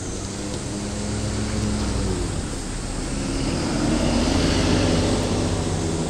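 A vehicle rumbling past with a low engine-like hum, swelling to its loudest about four to five seconds in and then easing off a little.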